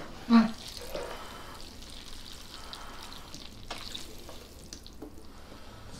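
Metal tongs lifting sauced jjapaghetti noodles in a pan: soft, wet, sticky handling sounds with a faint hiss and a few light clicks. One short louder sound comes just after the start.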